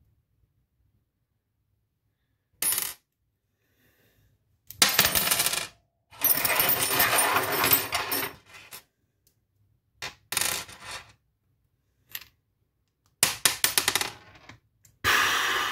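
Small metal padlock parts and tools clinking and rattling against a hard countertop in several bursts, with a run of quick rattling clicks near the end, as a Paclock padlock is taken apart.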